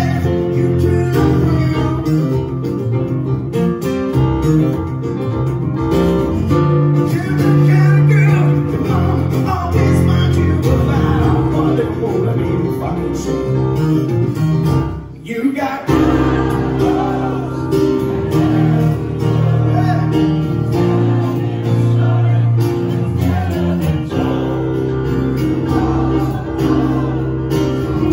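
Live acoustic song: a man singing over strummed acoustic guitar and piano, with a brief break in the music about halfway through.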